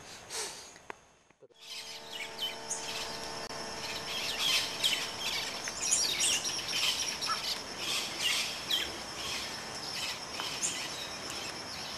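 Outdoor ambience of birds chirping and calling over and over, with a steady high insect hum behind, after a brief dropout about a second in.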